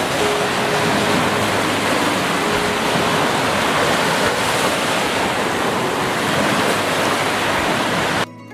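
Small waves breaking and washing up a sandy beach: a steady, dense wash of surf. It cuts off suddenly near the end and gives way to quiet music.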